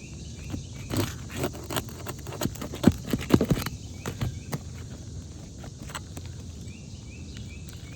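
Asphalt roof shingles being worked loose by hand and tool: a run of scraping, crackling and sharp knocks, loudest about three seconds in, then thinning out to a few scattered clicks.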